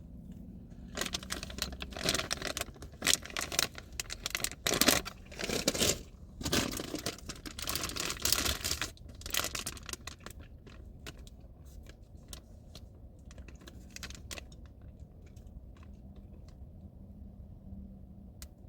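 Plastic candy wrapper crinkling and tearing in a run of bursts as it is handled and opened, thinning out to scattered small clicks and rustles in the second half.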